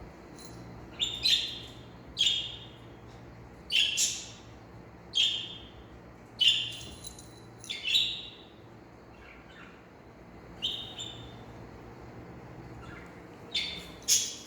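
A small animal giving short, high-pitched chirping calls, about ten of them at uneven intervals, each dropping slightly in pitch.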